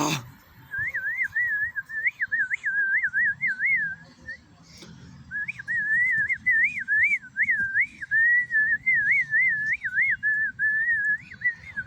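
A person whistling a warbling tune of quick up-and-down notes, with a pause of about a second partway through. A brief thump at the very start.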